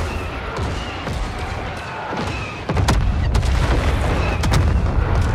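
Wind buffeting the microphone: a heavy, irregular low rumble that gets louder about two and a half seconds in, with a few sharp clicks and faint short high chirps over it.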